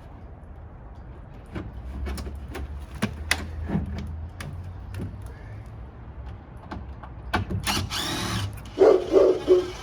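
Scattered knocks and clunks of things being handled, with a short rushing scrape about eight seconds in, then a dog barking three times in quick succession near the end.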